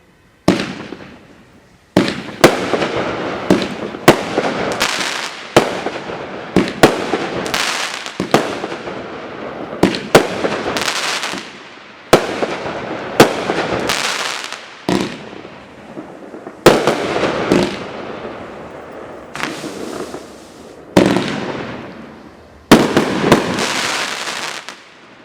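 Shock Wave Full Charge 500-gram fireworks cake firing its shots in rapid succession: a string of sharp bangs, each with a fading tail, coming about one to two a second after a brief quiet start about half a second in.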